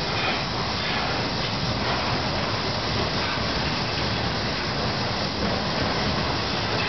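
Freight train's intermodal cars rolling steadily past: the continuous noise of steel wheels running on the rails, with no horn or engine note.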